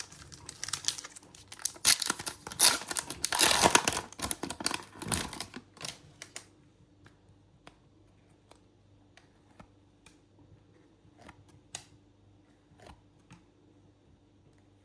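A trading-card pack wrapper torn open and crinkled for about six seconds, then cards handled and flicked through one at a time with faint, scattered clicks.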